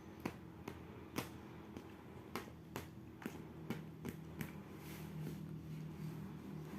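A series of light, sharp clicks and taps at an uneven pace, about a dozen in all, with a low hum building near the end.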